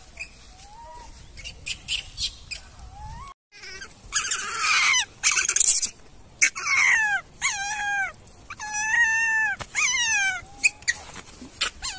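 Baby macaque crying: a harsh screech about four seconds in, then a run of about four loud, high-pitched cries, each falling in pitch at its end.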